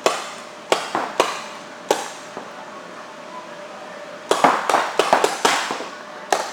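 Reball markers firing during a game: sharp pops of shots and balls striking, each with a short echo. A few single shots come first, then a rapid volley of about eight a little past halfway, and one more near the end.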